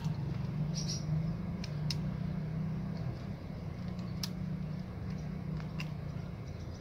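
A few light metallic clicks of long-nose pliers gripping and twisting a copper wire splice tight, over a steady low hum.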